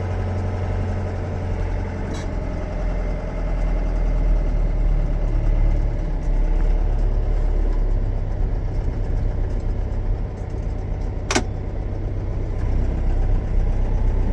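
John Deere 6420 tractor's diesel engine running steadily, its level shifting a few times, after a new speed sensor was fitted to cure the speed readout dropping out and jerky shifting. A single sharp click about 11 seconds in.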